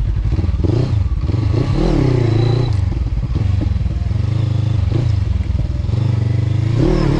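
Motorcycle engine riding off, its note rising and falling as the throttle is opened and eased, twice over; likely the Honda CB500X's parallel twin.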